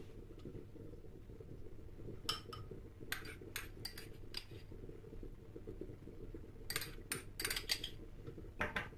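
Metal spoon clinking against a ceramic bowl while nuts are spooned onto porridge: a dozen or so short clinks in two bunches, over a steady low hum.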